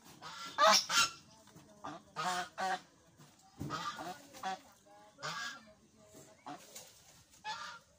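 A series of short honking animal calls, about one every second, the loudest pair near the start.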